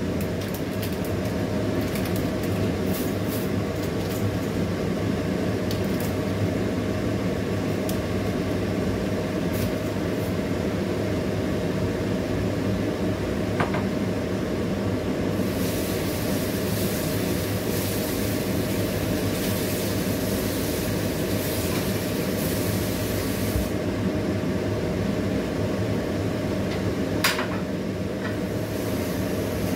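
Steady hum from a gas stove and kitchen while a pot of water with squid tentacles heats on the burner. A brighter hiss rises in from about halfway and fades out again a few seconds before the end, with a few faint clicks.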